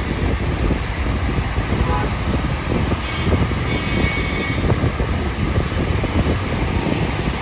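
Interior noise of a moving bus: a steady low engine and road rumble with traffic around it.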